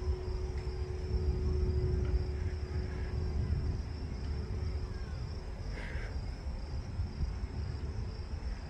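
Low steady rumble of a distant jet aircraft, with a faint steady engine tone that fades out about five seconds in. A constant high insect buzz runs underneath, and a brief chirp comes about six seconds in.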